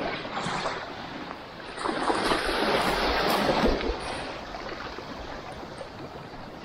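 Small waves lapping and washing on a sandy shoreline, swelling louder about two seconds in and easing off after about four seconds.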